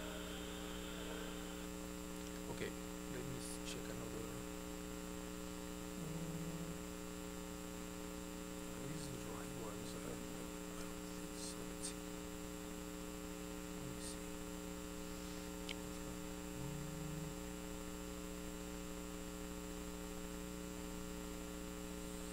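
Steady electrical mains hum, with a few faint brief clicks scattered through it.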